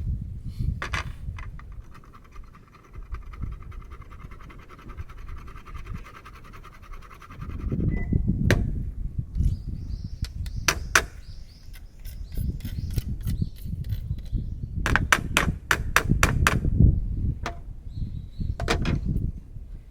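Sharp knocks and strikes, scattered at first, then a fast run of them about three-quarters of the way in, over a low rumble.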